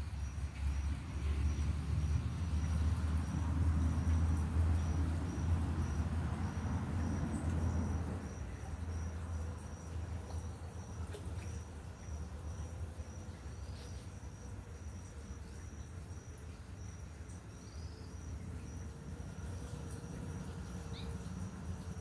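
A high-pitched insect call pulsing evenly, about twice a second, over a low rumble that is heavier for the first eight seconds and then eases.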